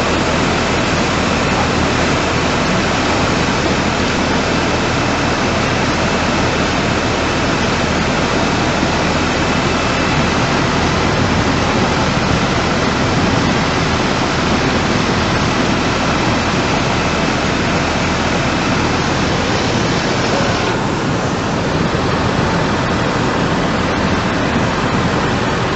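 Muddy flash flood surging through a valley, a loud, steady rush of churning water and debris.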